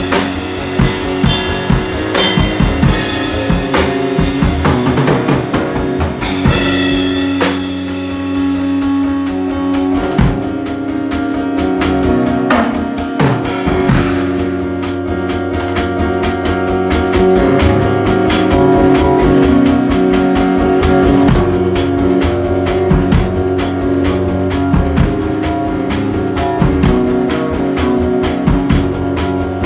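Live guitar and drum kit jamming an instrumental groove: a steady, busy drum beat with guitar playing over it.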